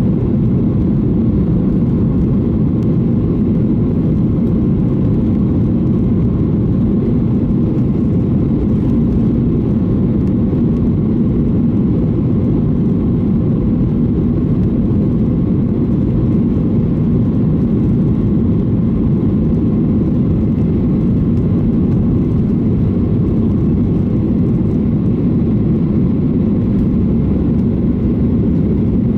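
Steady low rumble inside the cabin of a Boeing 737-800 taxiing, its CFM56-7B engines turning at taxi power.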